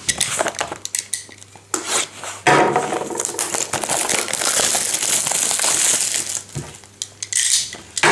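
Plastic shrink-wrap being slit and torn off a cardboard trading-card box and crumpled by hand: a few sharp clicks at first, then a few seconds of continuous crinkling.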